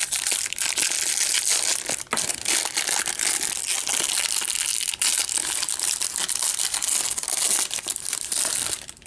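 Trading-card hanger box packaging being torn open and crumpled: a dense, continuous crinkling and crackling that stops just before the end.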